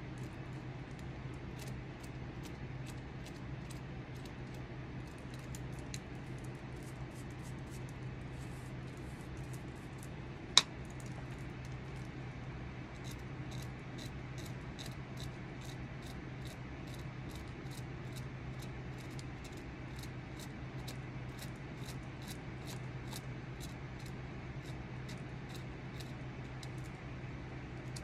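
Small hand carving tool cutting into the wooden knob of a walking stick in short scraping strokes, about two or three a second, over a steady low hum. One sharp click stands out about ten seconds in.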